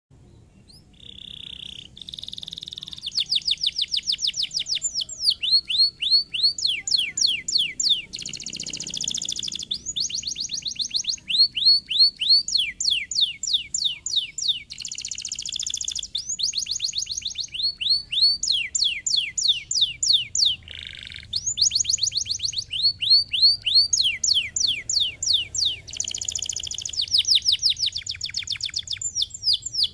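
A domestic canary singing: a long run of fast trills, each made of rapidly repeated down-slurred whistled notes, one phrase after another with brief pauses. A few held buzzy notes come between the trills.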